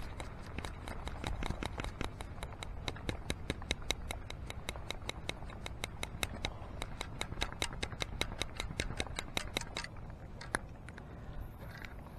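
Beach sand scoop being shaken to sift out a target, with grit and pebbles rattling against the scoop in a fast, even run of clicks, about five a second. It stops about ten seconds in.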